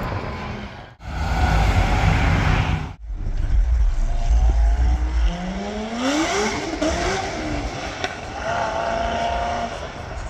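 Supercar engines revving and accelerating, with a rising engine note about five to seven seconds in. The sound breaks off abruptly about a second in and again about three seconds in, where one short clip gives way to the next.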